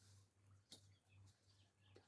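Near silence: faint room-tone-like hum with soft hiss and a single faint click about three-quarters of a second in.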